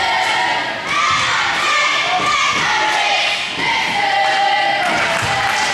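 Spectators in a gym shouting and cheering during a free throw, many voices at once, with a few dull thuds of a basketball on the hardwood court.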